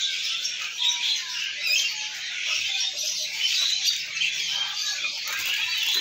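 Many caged songbirds chirping and calling over one another in a dense, continuous high-pitched chatter.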